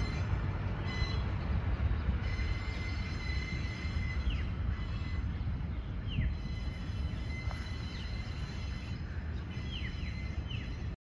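Loaded sugarcane bins of a two-foot-gauge cane train rolling along the track: a steady low rumble with thin, high wheel squeal that comes and goes. A few short falling chirps sound over it, and it cuts off suddenly near the end.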